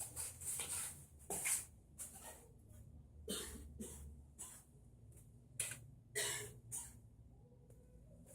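Nissan 240SX engine idling roughly: a steady low hum broken by irregular short puffs and sputters.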